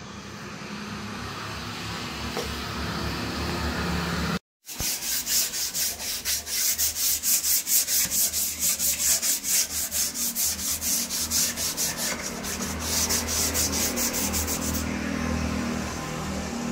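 Sandpaper rubbed by hand back and forth along a reclaimed wood board, a fast, even run of short scratchy strokes. It starts suddenly about four and a half seconds in and stops about fifteen seconds in, with a steady background hiss and hum before and after.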